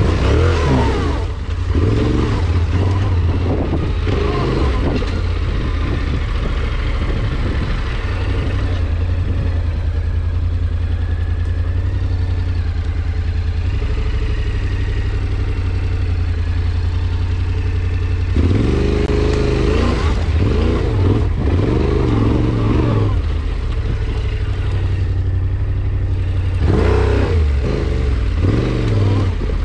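A vehicle engine running steadily under load with rattling and clatter, revving up and down in two stretches in the second half.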